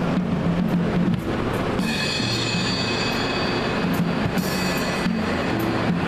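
A live rock band playing at a sound check, with bass notes and drum and cymbal hits. From about two seconds in to past four seconds, a high held tone rings over the band.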